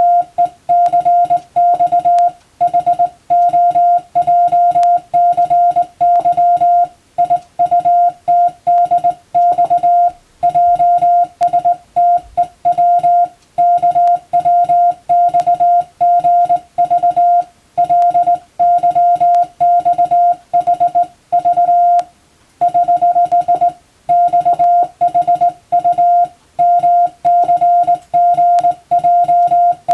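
Morse code (CW) sent as a single steady tone keyed on and off in short dots and longer dashes, with brief gaps between characters and words and one longer pause about three quarters of the way through. It is hand-keyed practice sending of Latin-alphabet telegram text, as used for the radiotelegraph operator's telegraphy exam.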